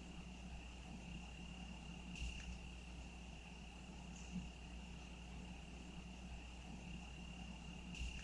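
A cricket trilling without a break, one faint high note, over a low steady rumble. Two brief soft knocks, about two seconds in and near the end.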